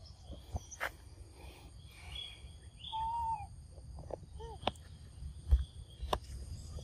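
Outdoor ambience of a steady high insect drone, with one short rising-and-falling call about three seconds in, a couple of fainter calls later, and a few light clicks.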